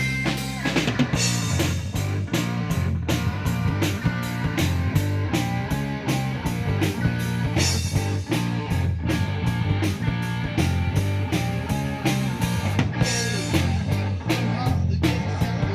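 Live rock trio playing: drum kit keeping a steady beat under a bass guitar line and guitar, the full rhythm coming in about a second in.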